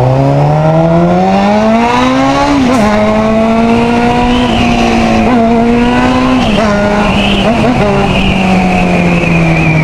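600 cc inline-four motorcycle engine accelerating hard: its pitch climbs steadily, drops at an upshift about two and a half seconds in, holds through the middle, then sinks slowly as the throttle eases.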